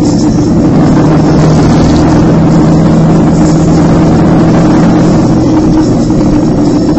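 Motorcycle engine running at a steady road speed, mixed with heavy wind and road noise on the microphone; the steady engine hum thins out about five seconds in.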